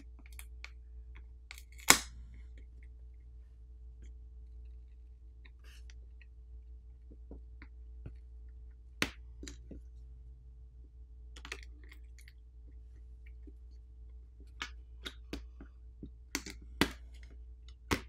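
Scattered light clicks and taps of a plastic pry tool and fingers on the opened phone's frame and battery as the battery is pried out. The sharpest click comes about two seconds in, and several more follow near the end. A faint steady hum lies underneath.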